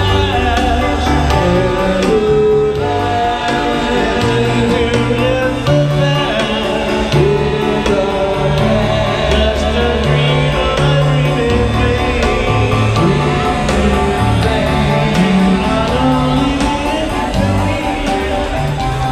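Live band music with a singer over a steady bass line, played through a PA for dancing.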